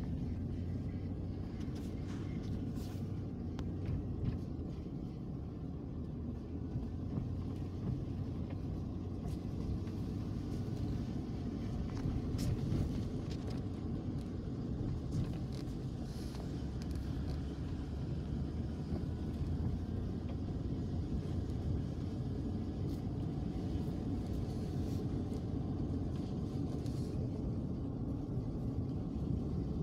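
Vehicle driving on a rough dirt and gravel road, heard from inside the cab: a steady low engine and road rumble with occasional clicks and rattles.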